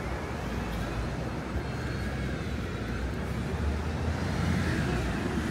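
Steady low rumble of motor traffic with a general outdoor hiss.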